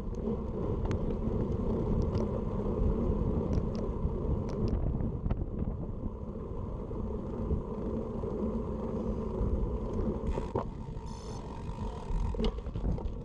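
Steady wind rumble on a handlebar-mounted action camera's microphone as a road bike rolls slowly, with scattered light clicks.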